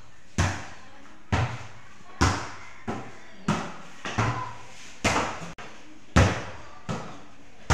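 A volleyball being bumped and set back and forth between two players, each contact a sharp slap that echoes in a bare tiled room, about one hit a second with a few lighter touches in between.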